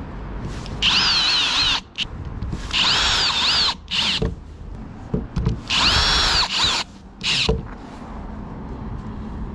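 Cordless drill/driver driving screws into a flush-mount rod holder on a plastic kayak deck. The motor whines in several short runs, its pitch rising and falling with each run.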